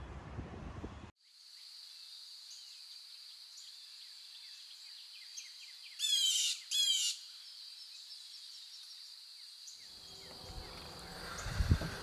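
Two loud bird calls about a second apart, each a quick run of falling notes, over a steady high insect drone. Wind buffets the microphone for the first second.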